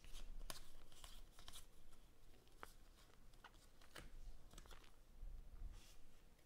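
Faint, scattered clicks and rustling of baseball trading cards being flipped through by hand, card edges sliding and snapping against each other.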